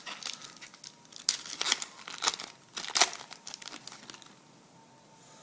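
A 2011 Topps Chrome trading-card pack wrapper crinkling and being torn open by hand, a quick run of sharp crackles that dies away about three seconds in.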